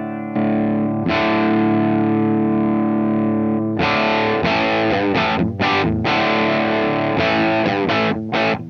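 Gibson Les Paul electric guitar played through the LPD K-1 overdrive/boost pedal into a Suhr PT15 amp, with a distorted tone: a held chord rings for about three seconds, then short chopped chords follow in a rhythm.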